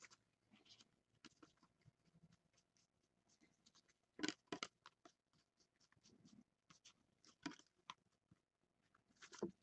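Mostly near silence, with faint scrapes and clicks of 2016 Donruss football trading cards being flipped through by hand: a few about four seconds in, one or two around seven and a half seconds, and a slightly louder scrape near the end.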